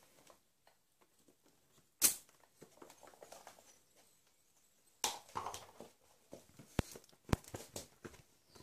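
Handling noises from an inflated football and its pump on a wooden floor: soft rustles and scrapes, a short sharp burst about two seconds in and another about five seconds in, then two crisp knocks near the end.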